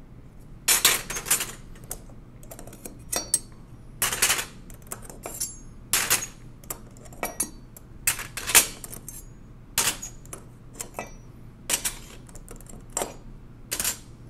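Flat steel keyboard bars from a 1920s Monroe mechanical calculator clinking and rattling against one another as they are laid down in a pile on a table: an irregular run of sharp metallic clinks, one or two a second, some in quick clusters.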